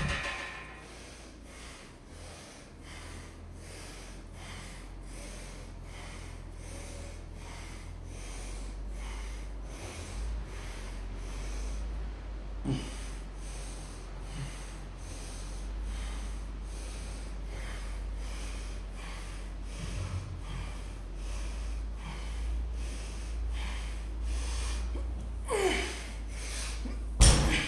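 A person breathing hard from exertion during a deadlift and chin-up workout, with a low steady rumble under it. A loud thud comes near the end.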